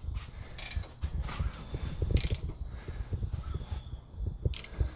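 Handling noise: light, irregular knocks and rustles, with three short hissing bursts, about half a second, two seconds and four and a half seconds in.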